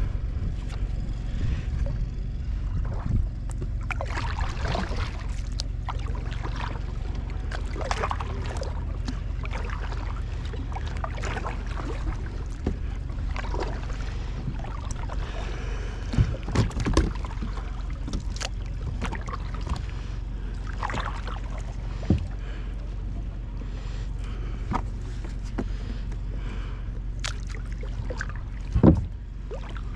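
Kayak paddling: repeated paddle strokes splashing and dripping in the water, with a few louder knocks, the loudest near the end, over a steady low rumble.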